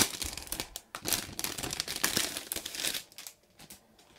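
Crinkly packaging around a pillowcase being handled and pulled open, a dense run of crinkling and rustling for about three seconds that gives way to a few faint light handling sounds.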